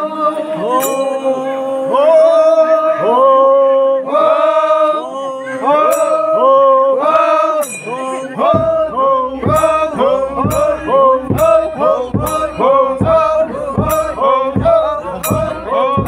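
A group of men chanting a traditional Liangmai song in unison, with long gliding held notes. About halfway through, a large wooden barrel drum struck with a padded mallet joins in at about two beats a second, and sharp metallic clinks from a small hand-held brass instrument come through the chant.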